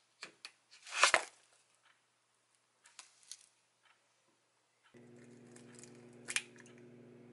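Plastic wrapper of a chicken-breast sausage ripped open, one short loud tear about a second in with a few faint crinkles after it. Later, over a steady low hum, a single sharp crack of an eggshell broken open over a glass mug.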